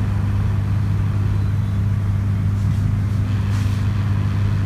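Steady low electrical hum throughout, with a couple of faint, brief hisses in the middle.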